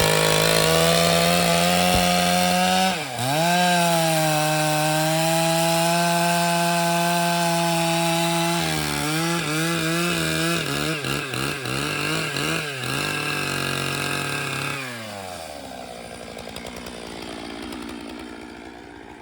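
Stihl MS 881 two-stroke chainsaw on a chainsaw mill, running at full throttle through a log with a steady high engine note. The note dips briefly about three seconds in and wavers in pitch through the middle, then the engine speed drops off and the sound falls away near the end.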